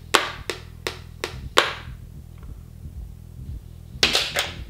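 A run of five sharp hand claps, about three a second, then a pause and two more claps about four seconds in.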